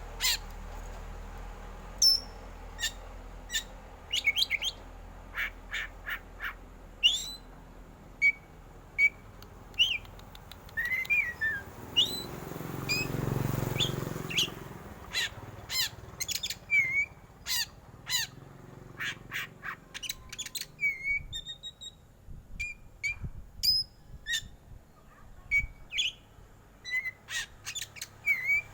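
Black-plumaged oriental magpie-robin (kacer hitam) calling in a long, irregular string of short, sharp, harsh notes, the cough-like 'batuk' style, mixed with brief whistled notes. A low rushing noise swells briefly about halfway through.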